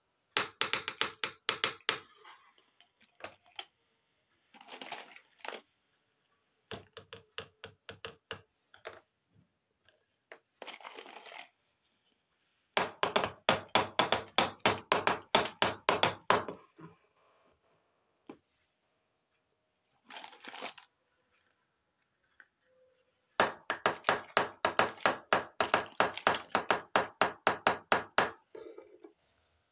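Small plastic toy dishes and pans tapped and clicked together rapidly. The clicks come in runs of quick, even taps, about eight a second, with short pauses between runs. The longest runs fall in the middle and near the end.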